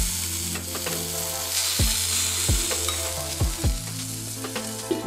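Beef mini steaks and quail eggs sizzling on the hot plate of a gas plancha, a steady frying hiss. Background music with a regular kick drum and held bass notes plays alongside.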